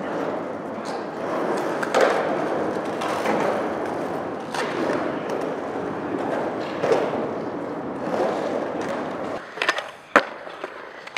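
Skateboard wheels rolling on rough concrete, a steady gritty rumble with a few louder bumps. Near the end it falls quieter and a few sharp clacks of a skateboard trick sound.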